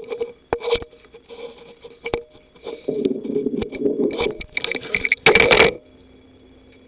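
Stomach growling and gurgling: squelchy clicks and gurgles that thicken about three seconds in and end in a loud burst just after five seconds, then stop.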